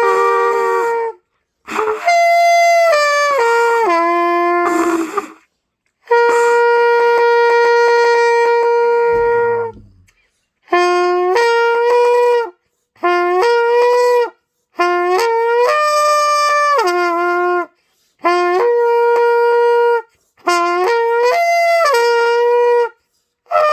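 A beginner playing the trumpet in about eight short phrases with brief gaps between them. Some phrases slur the pitch up and down between two or three notes, and one long steady note is held for about four seconds: long-tone and lip-slur practice.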